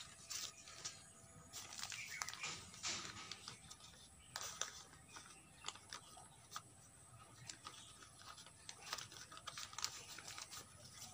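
Faint, irregular crackling and rustling as fingers press crumbly potting soil around a syngonium cutting in a thin plastic nursery poly bag.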